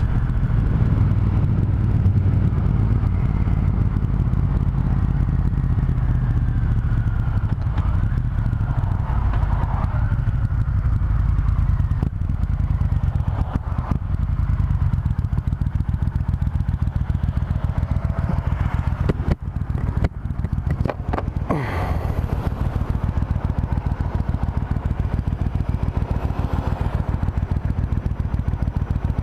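Triumph Thunderbird Storm's big parallel-twin engine running steadily while the motorcycle is ridden. About two-thirds of the way in the sound dips briefly, with a few sharp clicks.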